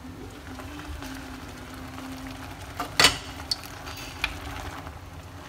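Pot of water spinach boiling, with a low steady hum underneath. The glass lid is lifted off with one loud clank about three seconds in, followed by a few light taps of chopsticks against the stainless-steel pot as the greens are stirred.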